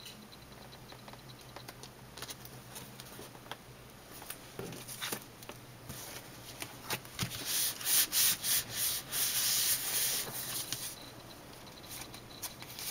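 Hands pressing and rubbing card stock, smoothing a glued paper panel down onto a card: light handling and paper clicks at first, then a run of louder rubbing strokes in the second half.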